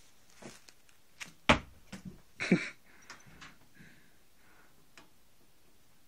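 A few knocks and scuffs from a trainer being pushed about as a cat tries to climb into it: one sharp knock about a second and a half in, a short scuffle about a second later, then a few faint rustles.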